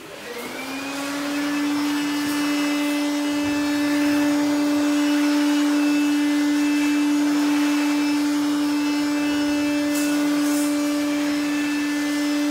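A motor-driven machine starts up, its hum rising in pitch over about the first second as it gets up to speed, then runs at a steady, constant high hum.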